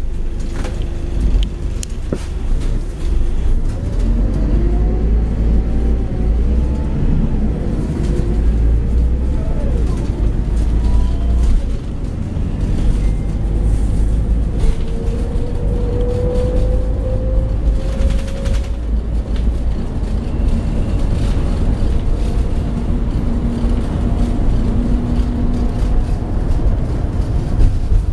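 Cabin sound of a Scania K94 coach on the move: a steady heavy low rumble from engine and road, with a faint whine that rises in pitch several times as it pulls away through the gears.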